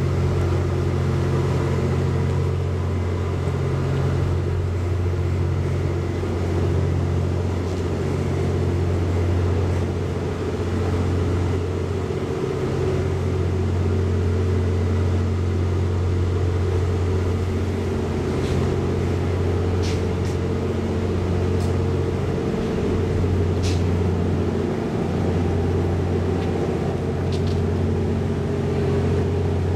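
A JR West 87 series diesel-electric hybrid train, the TWILIGHT EXPRESS Mizukaze, standing with its diesel generator engines idling: a steady low hum of several tones. A few short, sharp clicks come about two-thirds of the way in.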